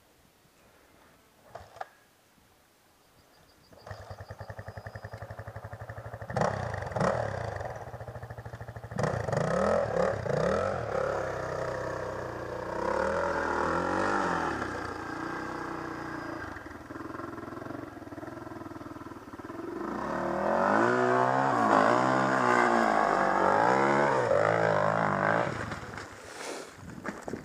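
Near silence for about four seconds, then an off-road motorcycle engine comes in, revving up and down repeatedly as it works its way up a dirt hill. It is loudest about three-quarters of the way through and dies away near the end.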